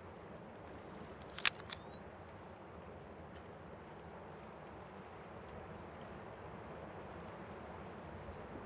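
Compact camera's shutter clicking about a second and a half in, followed by its flash charging: a thin high whine that climbs slowly in pitch for several seconds. Steady wind noise underneath.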